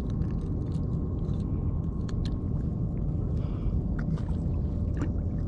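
Steady low rumble of wind buffeting the microphone over open water, with a few faint clicks.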